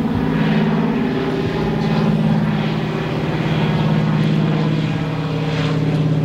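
Douglas DC-3's twin radial piston engines and propellers flying overhead: a steady drone that swells and eases slightly as it passes.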